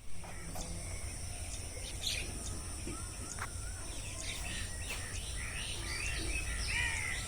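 Several wild birds chirping and calling in short phrases, busier toward the end, over a steady high-pitched hum and a low rumble of background ambience.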